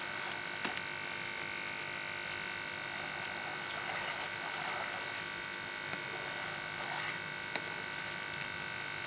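Semolina halwa bubbling in a pan while a metal spoon stirs it, over a steady hiss, with a few light clicks of the spoon against the pan.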